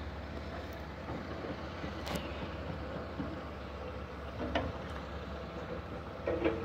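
Outdoor background noise: a steady low rumble, with a few short, sharp knocks about two seconds and four and a half seconds in.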